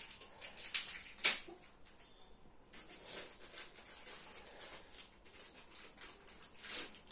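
Clear plastic packaging crinkling and rustling as it is handled and opened by hand, with a sharp crackle a little over a second in and another near the end.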